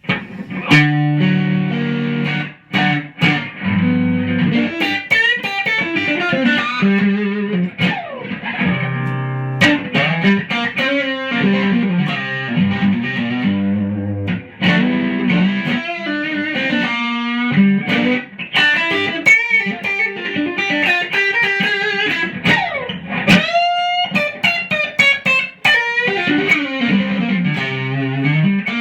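Electric guitar played on its neck pickup, a Bare Knuckle Blue Note P90 with the bass cut off (full P90 sound): chords and single-note lead lines, with a string bend near the end.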